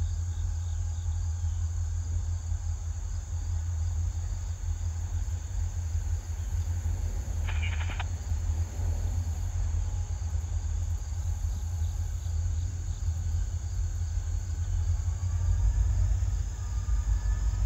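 A short burst of rapid insect chirping about seven and a half seconds in, over a steady low rumble.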